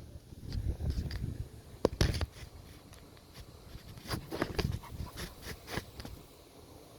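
Hands squeezing and pressing a 3D-printed plastic sleeve down over a skateboard wheel: rubbing handling noise, a sharp click about two seconds in, then a run of small clicks and scrapes as the sleeve is worked around the wheel.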